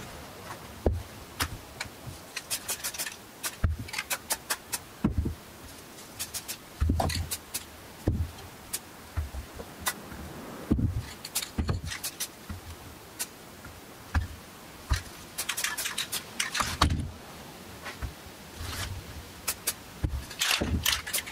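Aerosol spray paint cans being handled on a cardboard-covered bench: scattered sharp clicks and taps with dull thumps as the cans are picked up and set down.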